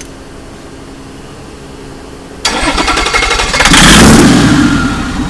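Toyota Land Cruiser VX100 diesel engine cranking and catching about two and a half seconds in, flaring up in revs, then easing back toward idle.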